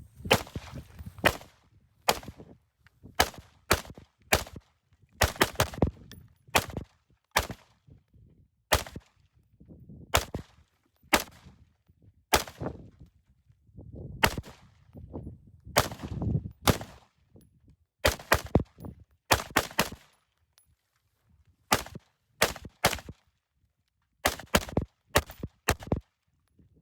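Gunshots, about thirty in all, fired singly and in quick strings of two to four with short pauses between.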